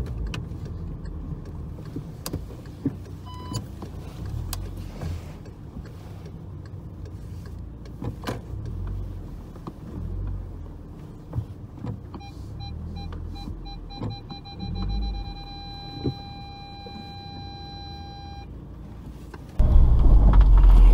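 Low rumble inside a VW Golf GTI Mk6 creeping through a car park, with scattered clicks and a short beep about three seconds in. From about twelve seconds, parking-sensor beeps quicken and run together into one continuous tone, which stops near the end. Just before the end a much louder low rumble cuts in suddenly.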